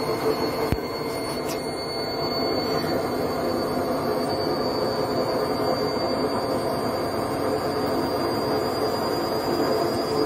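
Candy front-loading washing machine running with its drum spinning: a steady whirring rumble with a thin high whine that slowly rises in pitch, and a single knock about a second in.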